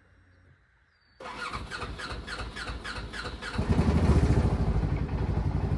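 Polaris Ranger 900 XP's twin-cylinder engine cranking on the starter at about four strokes a second, then catching about two seconds later and settling into a steady idle.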